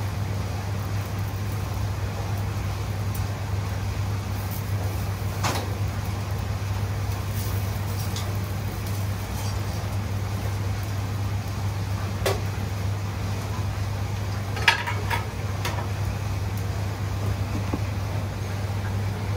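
Steady low hum of a kitchen extractor hood and range running, with a few sharp clinks of utensils against metal pans and a cluster of clicks about three-quarters of the way through.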